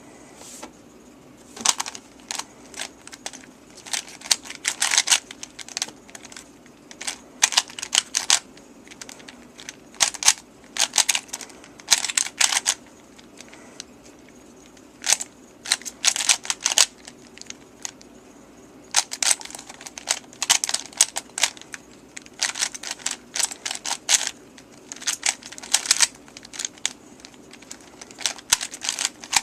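Plastic 3x3 Rubik's Cube being turned rapidly during a speedsolve: flurries of quick clacking layer turns, each burst a second or so long, broken by short pauses.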